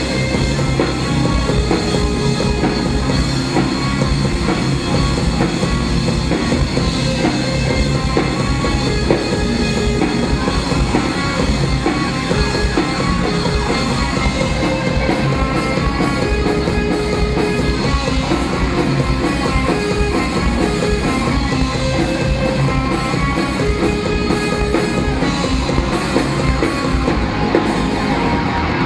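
Live rock band playing an instrumental stretch with no vocals: amplified electric guitars over a drum kit, loud and steady throughout.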